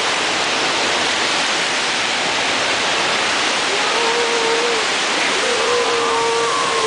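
Storm wind and heavy rain making a loud, steady rushing noise, the sound the person filming wonders is what a tornado sounds like. In the second half a thin, steady tone sounds twice, each time for about a second.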